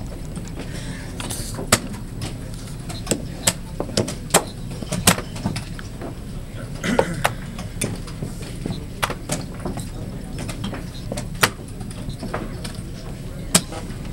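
Plastic chess pieces being set down on a vinyl board and digital chess clock buttons being pressed during a fast blitz game: about a dozen sharp clicks and taps at irregular intervals, over a steady background hum.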